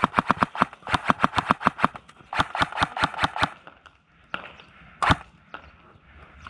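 Kingarms PDW airsoft electric rifle firing in three quick strings of shots, about nine a second, then three single shots, the loudest about five seconds in.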